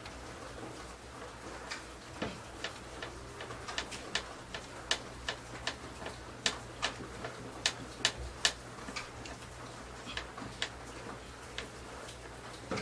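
Screwdriver driving screws to mount an 8-inch speaker in a speaker box: an irregular run of sharp clicks, about two or three a second, louder in the middle, over a low steady hum.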